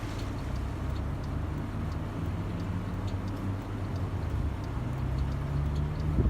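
A motor vehicle's engine running with a steady low hum, its pitch rising a little near the end, with faint light ticks throughout.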